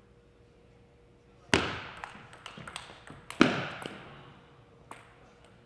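Table tennis rally: the celluloid ball clicking off paddles and the table, with two loud, hard strokes about two seconds apart that ring on in the gym hall.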